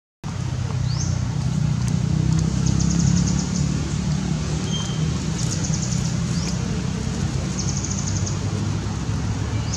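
Steady low drone of distant road traffic, with a few short chirps rising in pitch and several brief bursts of rapid, high trilling.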